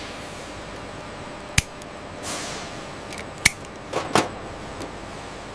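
Sharp snips and clicks from hand tools working wiring at an electrical terminal panel, with wire cutters snipping and connectors clicking. There is a single click about a second and a half in, another about three and a half seconds in, and a quick cluster of clicks around four seconds, all over a steady hiss, with a soft whoosh a little after two seconds.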